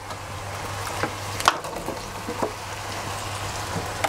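Cubes of raw pumpkin and sweet potato tumbling out of a plastic tub into an enamelled cast-iron pot of browning chicken. A few scattered thuds, the loudest about a second and a half in, over a steady sizzle.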